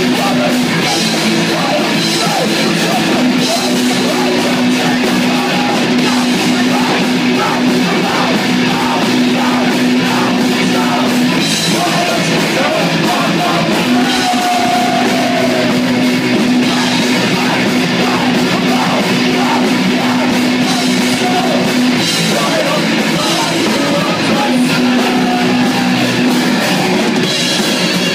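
Live rock band playing loud, with distorted electric guitars, bass guitar and drum kit, and voices singing over it.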